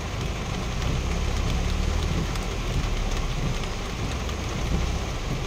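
Heavy rain pattering on a vehicle's roof and windshield, heard from inside the cab, over a steady low engine rumble.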